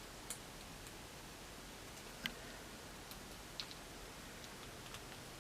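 Faint, scattered small clicks and taps of plastic action-figure parts being handled and fitted together, about five in all, the sharpest a little over two seconds in.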